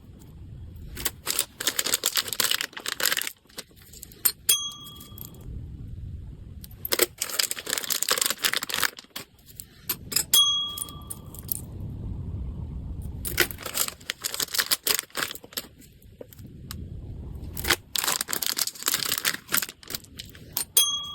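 Packaging handled by hand: repeated bursts of crinkling and tearing. A short, bright metallic ding sounds three times, about four seconds in, about ten seconds in, and at the very end.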